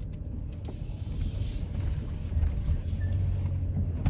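Rebuilt Hemi V8 of a Ram pickup running as the truck sets off, a steady low rumble that grows slightly louder about halfway through, with a brief hiss about a second in.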